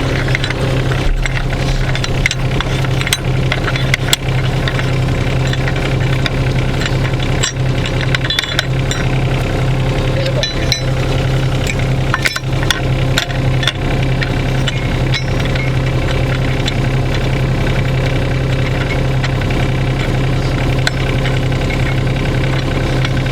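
An engine running steadily at a constant speed, with scattered short clicks and knocks over it.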